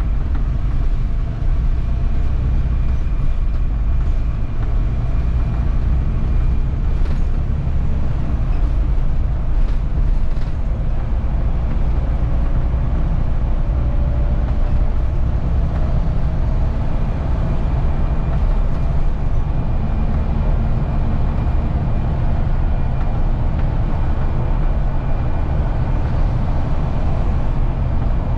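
Wrightbus StreetDeck double-decker bus under way, heard from on board: the steady low rumble of its Daimler OM936 7.7-litre six-cylinder diesel together with road noise.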